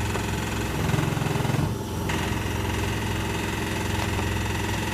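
Electrolux W455H commercial washing machine spinning: a steady low hum with rapid vibration from the drum. It swells louder for about a second, then briefly dips.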